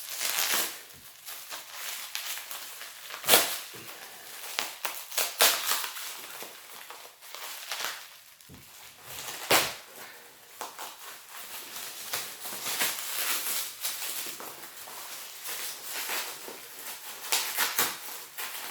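Packaging being opened and handled: irregular rustling and crinkling with scattered clicks, and a couple of sharper knocks, about three seconds in and near the middle.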